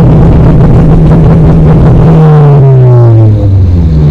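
Toyota Starlet's turbocharged four-cylinder engine held at a steady, choppy rev of about 4,000 rpm on the launch control rev limiter, then the revs fall away as the throttle is let off.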